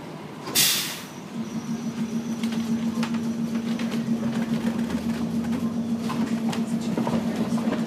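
Vintage streetcar pulling away from a stop: a short, loud air hiss about half a second in, then a steady hum and a rumble that grows as the car picks up speed, with scattered clicks from the wheels on the rails.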